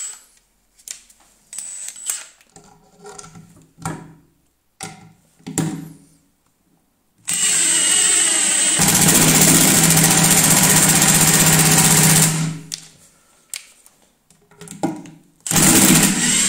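A Milwaukee M18 FIW2F12 impact wrench and a Makita DTD172 impact driver driving long wood screws into a timber beam side by side, both on their lowest power mode. A few light knocks, then about seven seconds in the motors whirr and the impact mechanisms start hammering rapidly for about three and a half seconds before stopping, with another burst of driving near the end.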